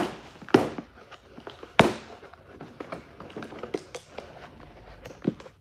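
Small cardboard box being opened by hand on a stainless steel table: a few sharp cardboard snaps and knocks, the loudest nearly two seconds in, amid a run of small crackles and rustles.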